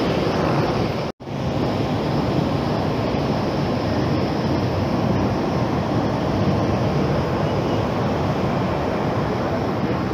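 Steady roar of jet aircraft noise on an airport apron, mixed with wind on the microphone. The sound drops out for an instant about a second in.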